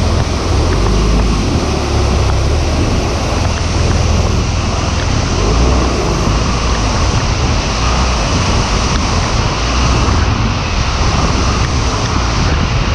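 Steady loud wind rush and low buffeting on the microphone, with a motorcycle running underneath, as heard while riding.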